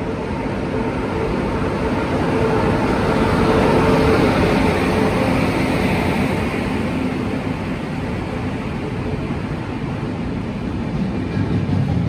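Passenger train arriving at a station platform. The locomotive passes at slow speed, its hum and rumble growing to loudest about four seconds in. The coaches then roll past with a steady rumble.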